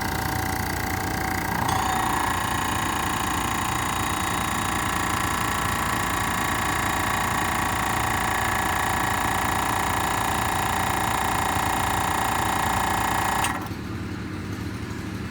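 MAX AK-715P2 air compressor running: a steady mechanical drone, with a high whine of several steady tones that comes in about two seconds in and cuts off suddenly near the end while the lower running noise continues.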